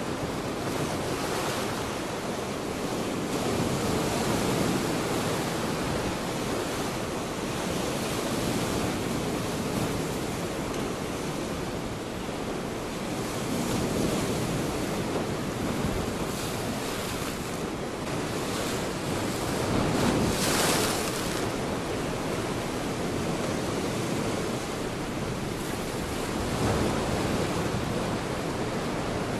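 Sea waves breaking and washing over flat rock ledges, the surf swelling and easing in level, with wind on the microphone; the loudest surge comes about two-thirds of the way through.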